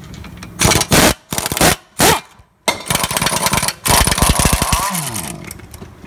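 Impact wrench with a 17 mm socket hammering loose brake caliper bracket bolts. It comes in three short bursts, then two longer runs, and winds down in pitch at the end.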